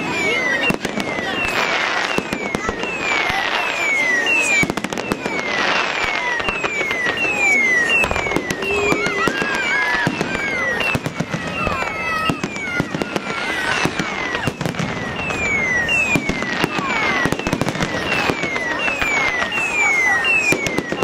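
Fireworks display: a dense, continuous run of bangs and crackles from bursting shells, with a repeated series of short falling whistles.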